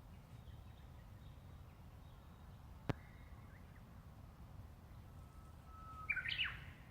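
Japanese bush warbler singing its 'hoh-hokekyo' song once: a long steady whistle followed by a quick, rising flourish of notes. A single sharp click about three seconds in.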